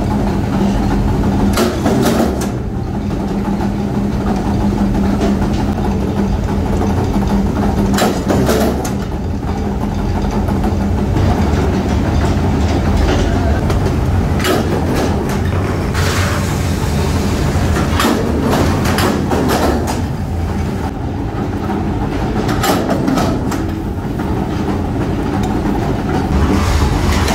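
Forge-shop machinery noise: a loud steady hum from the power forging press and shop machines, broken every few seconds by sharp metal clanks and strikes as hot steel is forged and handled with tongs.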